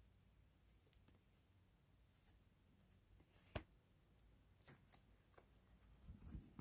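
Near silence with a few faint taps and rustles and one sharper click about three and a half seconds in: tarot cards being handled and drawn.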